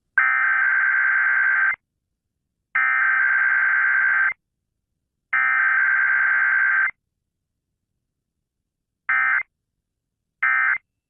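Emergency Alert System SAME header tones: three long bursts of buzzy, warbling digital data tone, each about a second and a half, separated by about a second of silence. Two much shorter bursts of the same tone follow near the end.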